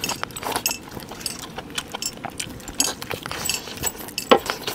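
Eating sounds: a mutton leg piece torn apart by hand and chewed, with the metal rings and bracelets on the eater's hands clinking against a steel plate in scattered clicks. The loudest clink comes near the end.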